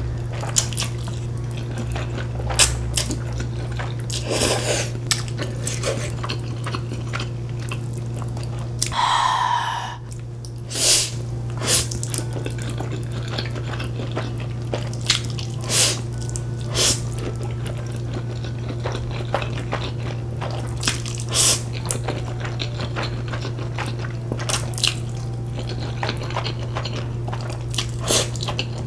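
Close-up eating sounds: cheese Buldak ramen noodles slurped off chopsticks, with many short wet mouth clicks and smacks and one longer slurp about nine seconds in. A steady low hum runs underneath.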